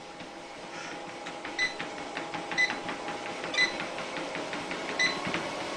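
Treadmill running with its belt turning: a steady motor hum and a light click about once a second.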